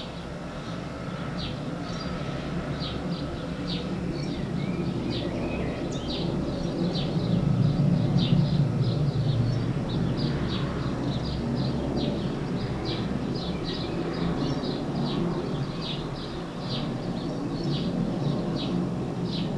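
Small birds chirping in quick, short calls, over a low rumble that grows louder about halfway through and then eases off.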